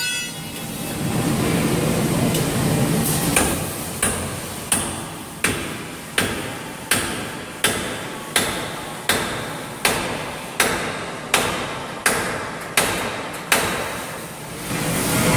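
A steady series of about fifteen hand-hammer blows on steel, roughly one every 0.7 seconds, each ringing briefly. A hammer is striking a steel bar held against the steel housing of a large rubber-tipped rotary airlock.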